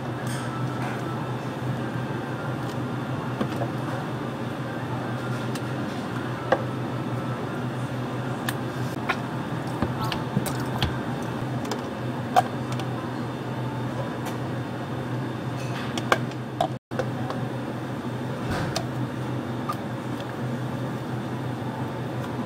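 A metal spoon and plastic cups clicking and tapping now and then as drinks are assembled on a counter, over a steady low hum of cafe equipment. The sound cuts out for an instant about 17 seconds in.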